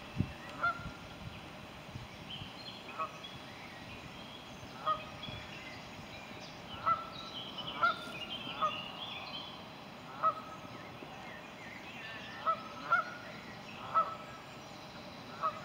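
Canada geese honking: about a dozen short single honks at irregular intervals, sometimes two in quick succession.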